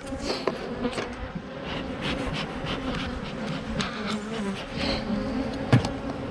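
Italian honey bees (Apis mellifera ligustica) buzzing around an open hive: a steady hum whose pitch wavers as bees fly close past. Scattered sharp ticks run through it, the loudest shortly before the end.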